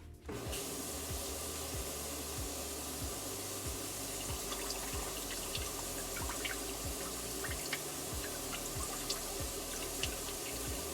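Tap water running steadily into a kitchen sink and down the drain, starting about half a second in, with scattered drips and splashes. It is a test run of the drain under the garbage disposal, which is leaking at the rubber seal fitted upside down.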